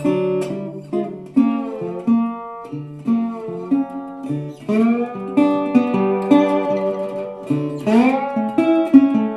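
Guitar music with sliding notes, played over the loudspeaker of a 1945 Westinghouse H-124 Little Jewel table radio tuned to a broadcast station.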